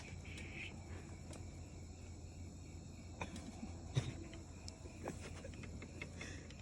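Faint steady chirring of crickets, with a low steady hum underneath and a few soft clicks and rustles scattered through.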